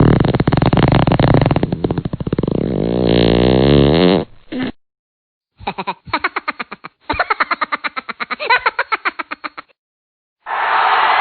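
A string of short comedy meme sound effects edited back to back with silent gaps. First a long buzzy effect whose pitch slides downward, then a rapid run of short repeated pulses, and near the end a dense noisy wash begins.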